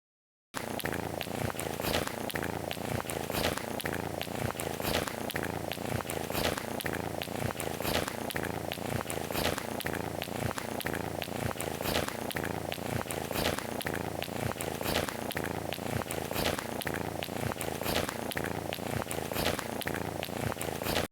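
Ragdoll cat purring steadily, a fast, even rumble that starts abruptly about half a second in; the purr of a contented cat.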